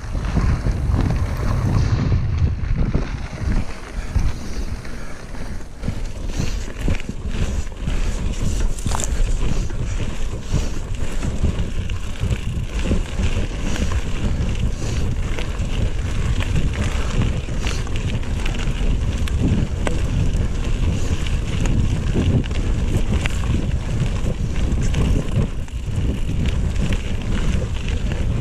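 Mountain bike riding down a gravel trail: tyres crunching over loose stones and the bike rattling with frequent small knocks, under heavy wind rumble on the camera microphone.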